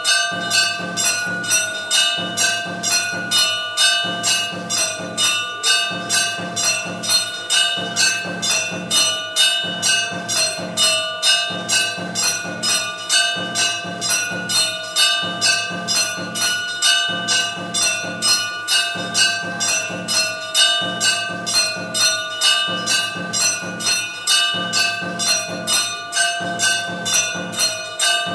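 A temple bell rung steadily at about two strokes a second, each stroke ringing on over the next.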